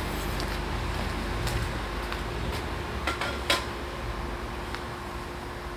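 A few light metallic clinks and knocks from hand tools being handled, the sharpest about three and a half seconds in, over a steady background hum.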